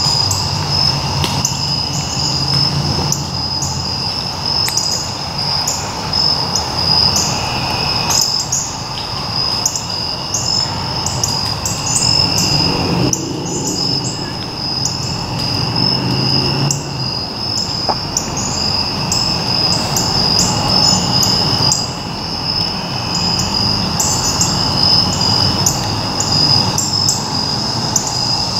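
Evening insect chorus: a steady high-pitched trill with a second, lower trill that fades in and out, and many short chirps repeating over them.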